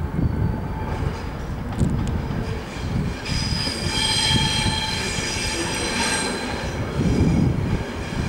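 NIR 111 Class diesel locomotive running in slowly, its engine rumbling low and steady. About three seconds in, a high metallic squeal from the wheels on the rails sets in, lasts about three seconds, then fades.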